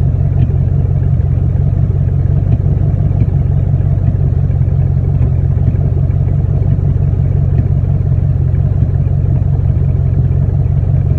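Ford Mustang GT's 4.6-litre V8 running steadily at idle, with a few faint sharp ticks in the beat, the sign of a random misfire.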